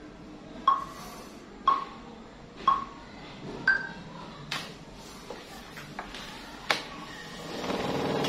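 Single short, bright synth notes played one at a time on a MIDI keyboard, about one a second, each ringing briefly and alternating between two high pitches. Then two sharp clicks, and a rustling, scraping noise near the end as the keyboard is pushed back on its stand.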